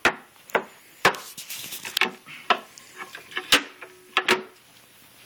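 Wooden Singer sewing-machine cabinet being folded and handled: a series of irregular knocks and clacks, about eight in five seconds, as its hinged wooden parts are moved and set down.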